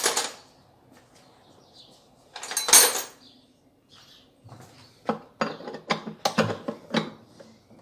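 Metal clanks and clinks of a 13 mm wrench working the tight bolt at the bottom of a top-loading washing machine's basket hub: one louder rattle a little under three seconds in, then a run of about eight short sharp clinks near the end.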